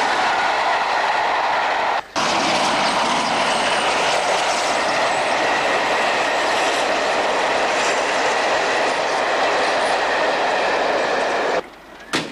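Train running on the rails: a loud, steady rush of wheel and rail noise with a faint high whine. It breaks off for a moment about two seconds in and drops away shortly before the end.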